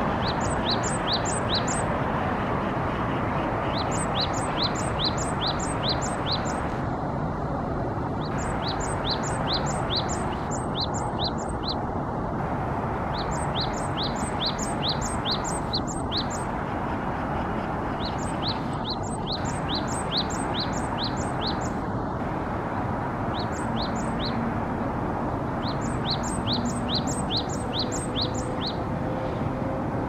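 Japanese tit singing: about eight bouts of a quick two-note phrase, a thin high note alternating with a lower one, repeated several times a bout with short pauses between bouts. A steady low rumble runs underneath.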